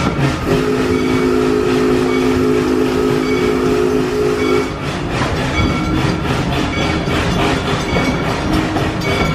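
Park railroad locomotive's whistle blowing one long chord blast of about four seconds, starting about half a second in. It sounds over the train's steady running noise and rhythmic wheel clatter on the track.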